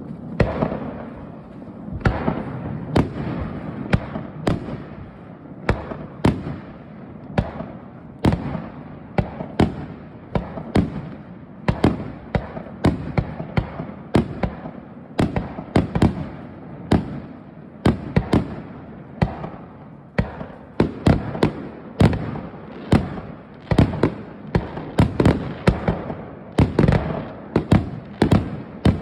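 Fireworks display: aerial shells bursting in a rapid, irregular series of sharp bangs, several a second, coming thickest near the end.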